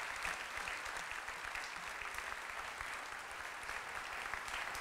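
An audience applauding: a steady, even patter of many hands clapping.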